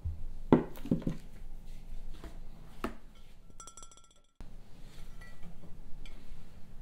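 Heat-resistant glass food-storage container (IKEA 365+, 1 L) knocking and clinking as it is picked up and handled. The loudest knock comes about half a second in, with a few more over the next two and a half seconds, followed by quieter handling noises.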